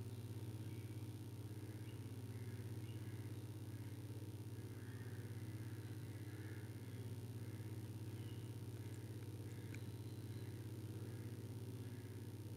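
Sewing machine running steadily as it stitches a thin cord onto a neckline, a low, even hum with a fine rapid pulse.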